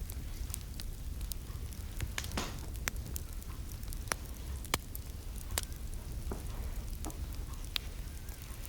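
Wood fire crackling in a fireplace: irregular sharp pops and snaps, roughly one every half second.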